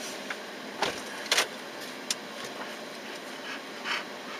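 Steady vehicle noise heard from inside a car's cabin, broken by a few short knocks and clicks. The loudest is a sharp double click about a second and a half in, and there is a low thump just before it.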